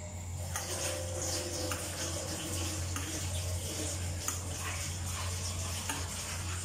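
Cooking oil pouring in a thin stream from a plastic bottle into an empty aluminium karahi, a steady hiss that starts about half a second in, with a few light ticks.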